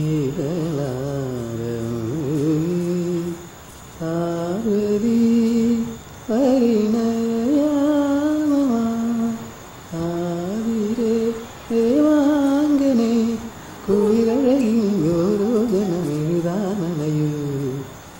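A person humming a wordless melody in phrases of a few seconds, with short breaks between them.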